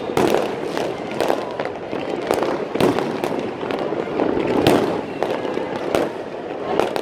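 Many fireworks going off at once from several launch points: a continuous barrage of sharp bangs and crackling, several reports a second, over a steady background of overlapping bursts.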